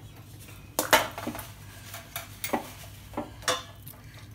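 Metal spatula scraping and clinking against a wok while fried chicken pieces are stirred through thick chilli chicken gravy. The strongest scrape comes about a second in, followed by several lighter ones, over a steady low hum.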